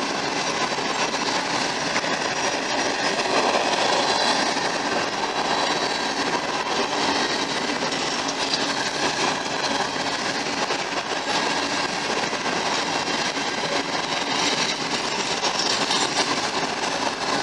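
Freight train of open-top coal hopper cars rolling past: a steady, unbroken noise of steel wheels running on the rails.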